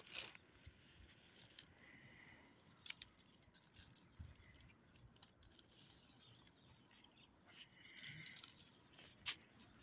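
Near silence with faint, scattered clinks and ticks from a small dog's metal collar tags and leash clip as it sniffs about.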